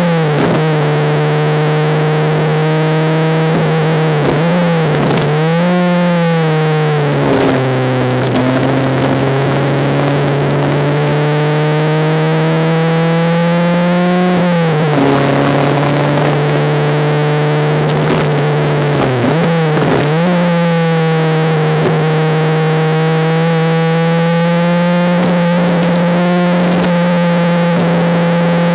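Honda Civic race car's engine heard from onboard at speed, its pitch drifting up and down with several sharp dips and recoveries, as at gear changes and braking. The recording is harsh and distorted.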